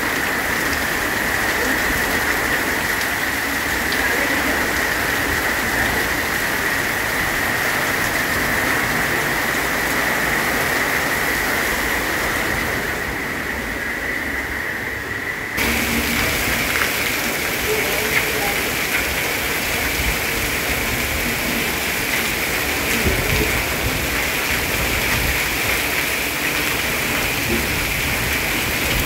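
Heavy monsoon rain pouring steadily as a dense, even hiss. About halfway through, the sound turns duller for a few seconds, then comes back full.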